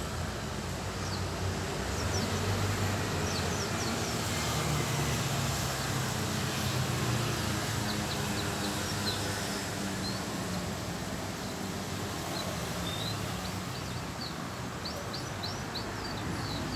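Steady hum of distant traffic, with thin, high chirps of small birds coming in several short runs.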